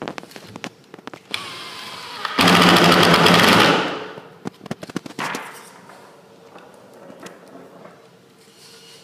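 Cordless drill with a countersink drill bit: it runs at a moderate level, then about two and a half seconds in it is loud for about a second and a half as the bit cuts into the wooden board, and winds down. Scattered clicks and knocks before and after.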